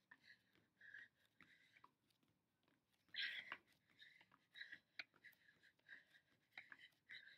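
Faint, quick rhythmic breathing and light taps of trainers on an exercise mat during mountain climbers, with one louder breath a little past halfway.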